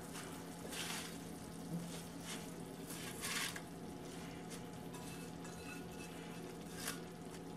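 Faint sizzling of sausage meatballs, mushrooms and onions in pesto in an electric skillet, with a few soft rustles as handfuls of spinach ribbons are dropped in.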